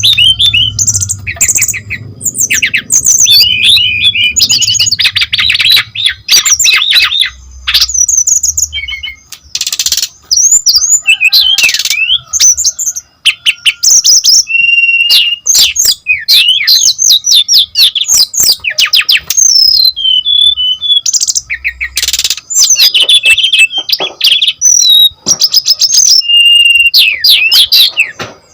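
Brown-chested jungle flycatcher (sikatan rimba dada coklat) singing a loud, fast, varied song of rapid chirps, trills and steep whistled glides, almost without pause.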